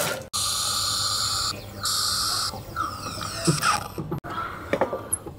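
Automatic coffee machine making a café latte: hissing spurts of steam and air with a whistling tone as it froths and dispenses milk, stopping suddenly about four seconds in, followed by a few small clicks and drips.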